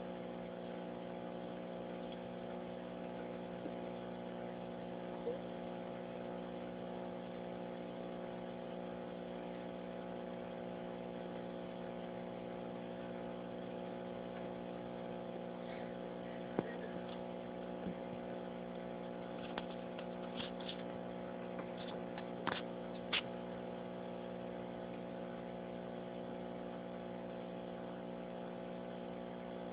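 A steady machine hum of several even tones, with a few faint clicks between about 16 and 23 seconds in.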